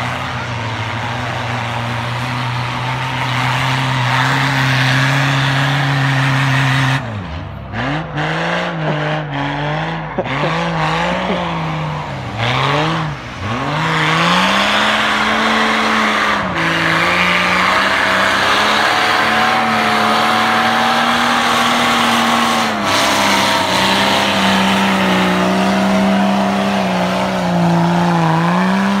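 Off-road 4x4 engine revving hard while its wheels spin up a snowy, muddy hill. The revs hold steady at first, swing up and down repeatedly for several seconds about seven seconds in, then stay high with small dips.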